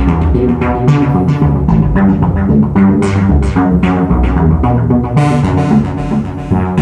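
Modular synthesizer playing a fast run of short pitched notes over a low bass, its tone shifting as its knobs are turned, with a brighter stretch a little after five seconds in.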